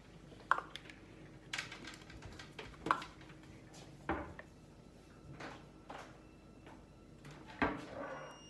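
Plastic spatula scraping and tapping against a plastic mixing bowl and small plastic jars as thick homemade body lotion is scooped out: a scatter of short clicks and knocks at irregular intervals, the loudest about three seconds in and near the end.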